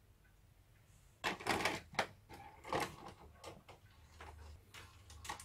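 Sony EDV-5000 ED Beta VCR's tape transport mechanism clicking and clunking as it changes mode during a test run: a quick run of loud clunks a little over a second in, another near the middle, then lighter clicks, with a low motor hum coming in later.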